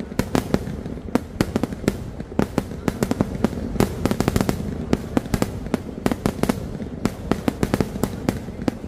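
Aerial fireworks shells bursting in a vedikkattu display: a fast, unbroken string of sharp bangs and crackles, several a second, over a steady rumble.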